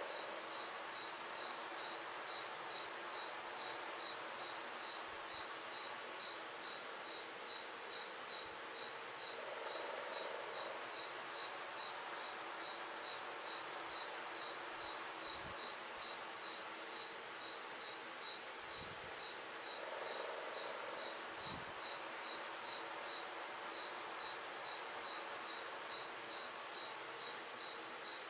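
Insects trilling: a steady high-pitched trill with a second, lower chirp repeating evenly about three times a second, over a steady hiss.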